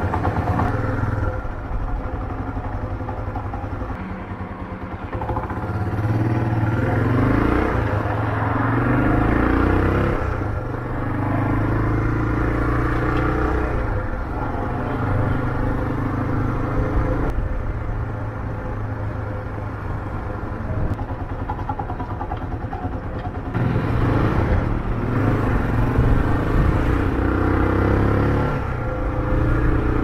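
Motorcycle engine heard from the rider's seat, pulling through the gears. It repeatedly rises in pitch as it accelerates, then drops back at each shift.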